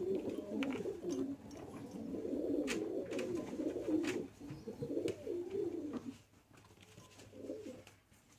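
Domestic pigeons cooing in a low, wavering run that carries on for about six seconds, then drops to a faint coo near the end. A couple of light clicks come partway through.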